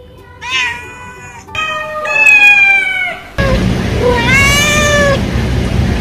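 Domestic cat meowing several times in long calls that waver in pitch, the middle one the loudest. From about halfway a steady hiss runs under the last meow.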